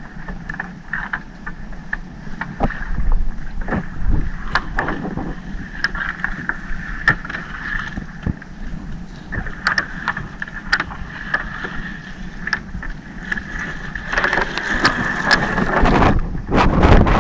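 Small fishing boat's engine running steadily, with frequent sharp knocks and clicks over it; a louder rushing noise sets in near the end.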